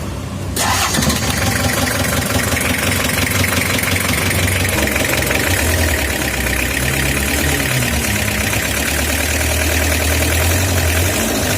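A Toyota Hiace diesel engine catches and starts about half a second in, after its glow plugs have preheated, then keeps running.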